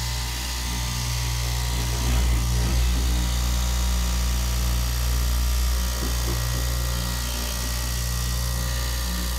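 Electric straight-knife cloth cutting machine running steadily with a low hum, its vertical reciprocating blade cutting through layers of cloth.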